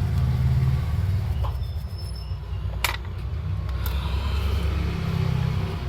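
A steady low rumble, with one sharp click just before the middle.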